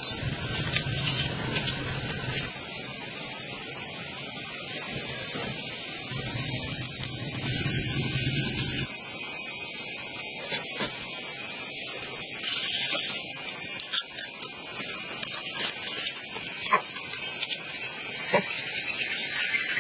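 Steady high-pitched drone of forest insects, louder from about eight seconds in, with scattered light clicks.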